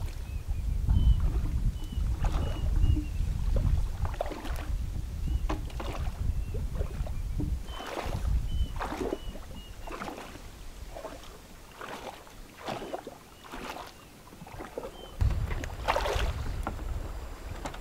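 River water splashing and sloshing as a person wades and works her hands in the water beside a bamboo raft, with wind rumbling on the microphone. A bigger splash near the end.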